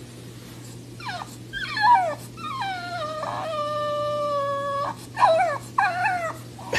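French bulldog whining: a few short whines that bend up and down in pitch, then one long drawn-out whine lasting about two and a half seconds in the middle, then a few more short whines near the end.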